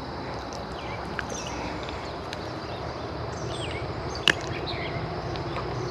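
Steady outdoor background noise with short bird chirps scattered throughout, and one sharp click a little over four seconds in.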